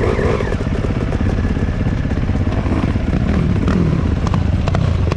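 Dirt bike engine running close by at a steady, moderate throttle, with a few light clicks and clatters between about three and four and a half seconds in.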